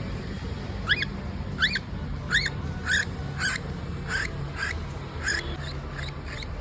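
Baby cockatiel's food-begging calls during hand feeding: a run of short, arched chirps, about one and a half a second, growing fainter near the end, over a steady low hum.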